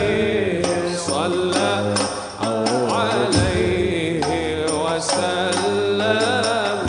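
Male voice singing an Arabic devotional qasida (sholawat) in long, ornamented held notes that glide up and down, backed by a steady drum beat and accompanying instruments.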